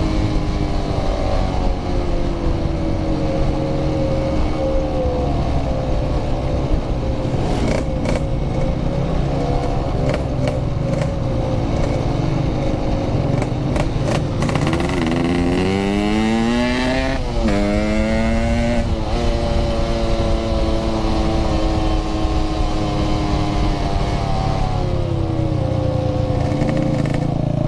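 Yamaha RX-King 135cc single-cylinder two-stroke motorcycle engine running under way, pitch drifting, then revving up sharply about halfway through and dropping twice in quick succession as it shifts. Low wind rumble runs underneath.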